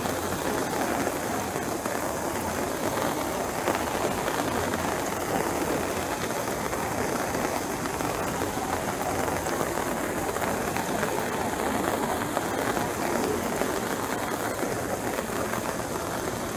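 Steady rain falling on a wet cobblestone pavement and its puddles.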